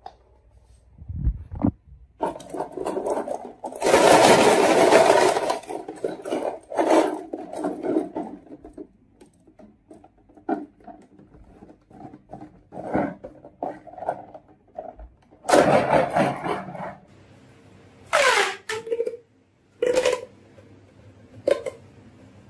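Marbles rattling and rolling inside a clear plastic bottle toy car as it is handled and tipped, in several loud bursts with scattered clicks between them. Near the end come short plastic sounds of a pop tube being bent.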